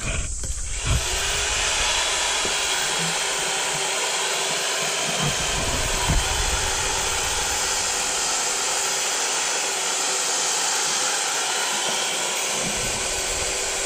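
A steady machine hiss with a faint hum, building up over about the first second and then holding level.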